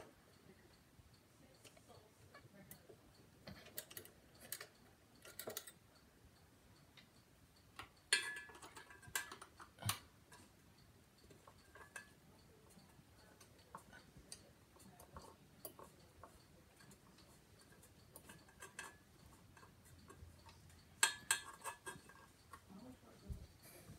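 Scattered light clicks and taps of hand work on ceiling fan parts and hardware, with sharper runs about eight seconds in and again near the end.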